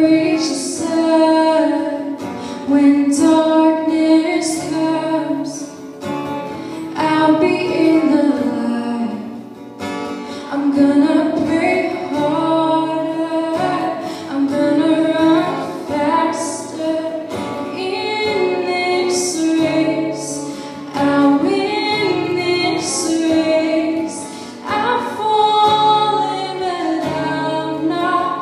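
A small group of voices, led by a female singer, singing a worship song to an acoustic guitar.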